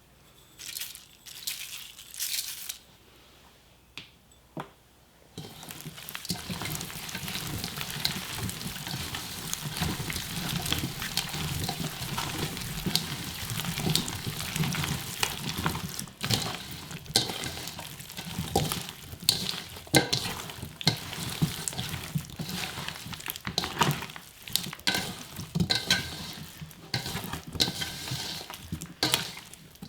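Cut onions being tossed and mixed with wet kimchi seasoning, a continuous crackling, squishing rustle full of small clicks. It starts about five seconds in, after a few scattered knocks.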